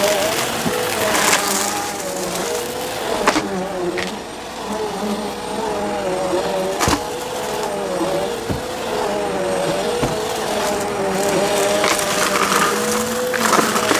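Bissell CleanView vacuum cleaner running with a steady motor whine that wavers in pitch as it sucks up crunchy debris. The debris crackles and snaps through it, with a few sharp cracks.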